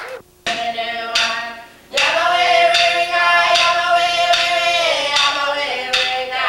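Several voices singing a long held chant together for an Aboriginal dance, with sharp percussion strikes keeping a steady beat; the held note steps down about five seconds in.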